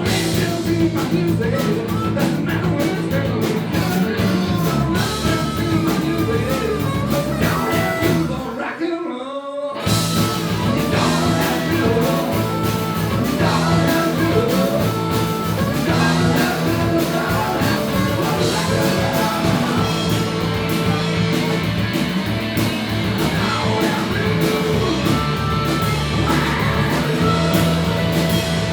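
Rock band playing live with a singer, the whole band stopping dead for about a second partway through before coming straight back in.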